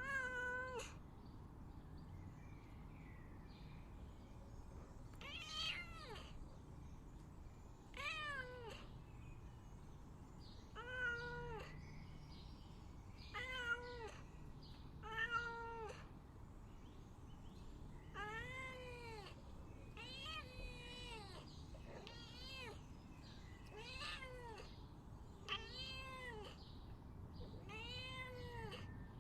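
Domestic cat meowing to beg, about a dozen short meows a couple of seconds apart, each rising and then falling in pitch.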